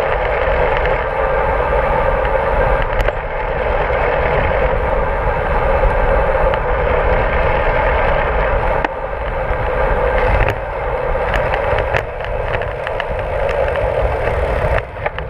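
Steady wind rush on the microphone and tyre rumble on asphalt from a road bicycle rolling along at riding speed.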